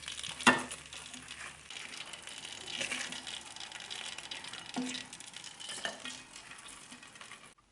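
People eating crispy air-fried chicken wings: irregular crunching and small handling clicks, with one sharp click about half a second in. The sound cuts off abruptly near the end.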